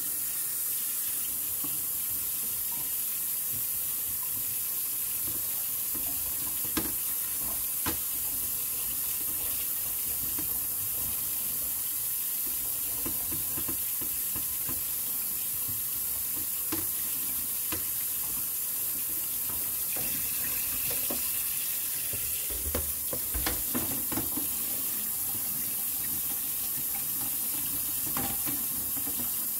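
Kitchen tap running steadily into the sink while a plastic slatted grille is scrubbed by hand with a cloth, with a few light knocks and clicks of the plastic against the sink.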